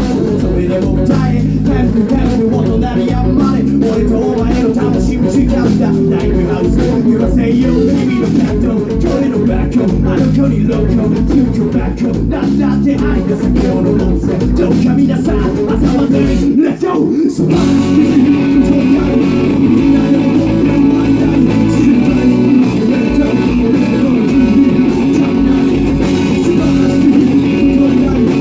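Loud band music: electric guitar and bass over drums, with a brief break about 17 seconds in, after which the guitar rings on in longer held chords.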